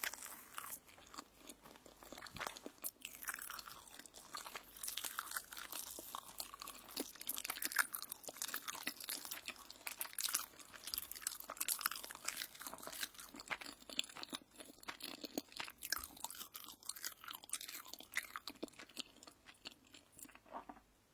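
Close-miked crunching and chewing of toast: many crisp, crackling bites and chews, busiest in the middle and thinning out toward the end.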